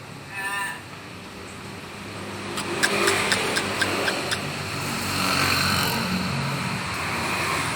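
A bird giving a series of short, sharp call notes in quick, even succession, over a background rumble that swells and fades through the middle.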